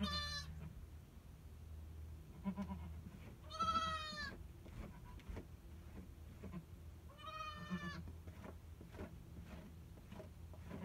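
Savanna goats bleating, a nanny and her newborn kid: three high bleats, the loudest about four seconds in and another about three seconds later, with short low grunts in between.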